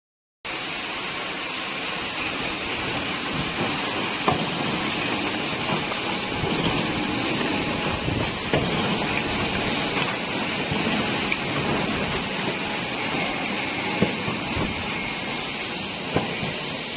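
Automatic box-packing machine running: a steady hissing mechanical noise with a few sharp clicks and knocks from its moving parts.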